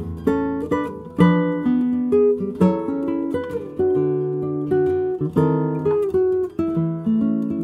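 Nylon-string classical guitar played solo, fingerpicked: a quick melody of plucked notes over bass notes and chords, each note ringing out.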